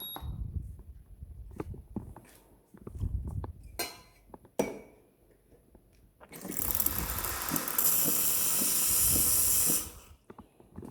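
Espresso machine steam wand releasing a loud hiss of steam for about three and a half seconds, starting about six seconds in and cutting off abruptly. Before it come a few sharp clicks and knocks of handling.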